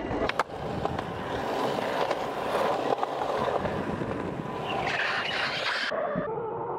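Skateboard wheels rolling steadily over concrete, with sharp board clacks at the start and again about half a second in.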